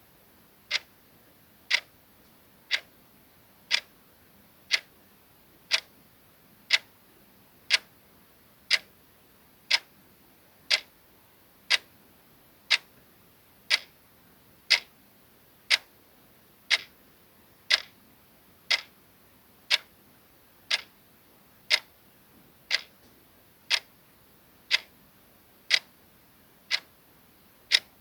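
Clock-ticking sound effect: a crisp, even tick once a second with nothing else over it.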